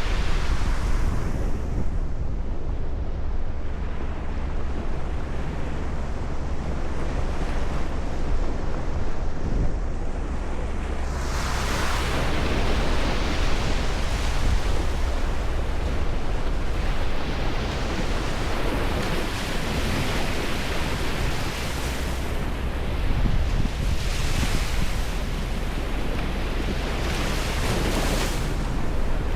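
Ocean waves breaking, the hiss of the surf swelling about a third of the way in and twice more near the end, over a steady low rumble of wind on the microphone.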